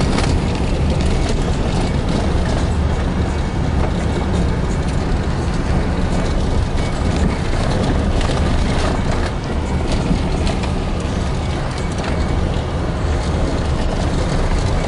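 Road and engine noise inside a moving vehicle: a steady low rumble with a hiss and occasional small rattles and knocks.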